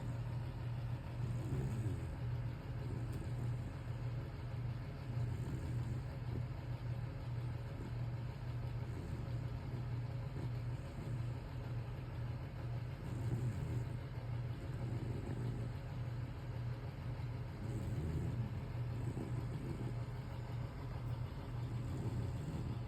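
Dog snoring in its sleep: a low, steady snore with a swell every few seconds as it breathes.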